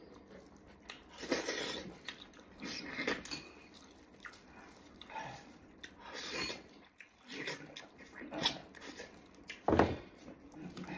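Close-up eating: meat torn from a braised pork knuckle, bitten and chewed, in irregular short wet mouth sounds, with one louder burst about ten seconds in.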